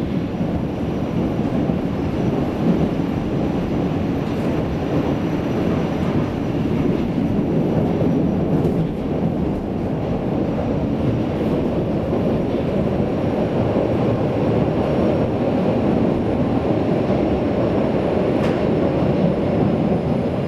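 Berlin U-Bahn train running between stations, heard from inside the car: a steady rumble of wheels on rail and traction equipment, with a few faint clicks.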